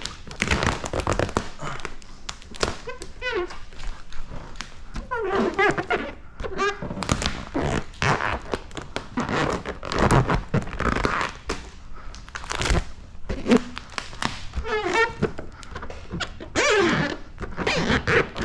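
Wet clear paint protection film being pulled, stretched and pressed onto a car's rear hatch: repeated crinkling and crackling of the film, with several short squeaky sounds.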